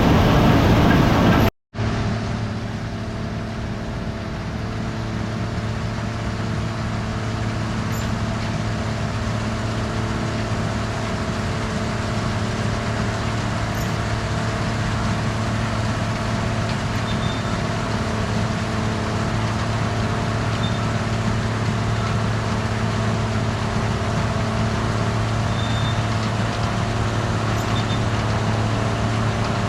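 Gleaner R72 combine's diesel engine running at a steady speed, a constant drone with a strong low hum and several steady tones above it. The sound breaks off for a moment about a second and a half in, then carries on evenly.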